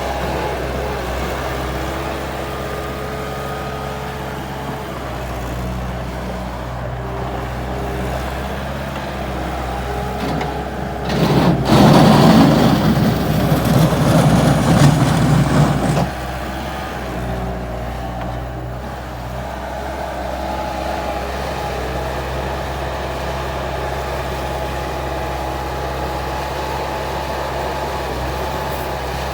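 Bobcat 863G skid steer loader's diesel engine running steadily, with a much louder, rougher stretch of about four seconds near the middle.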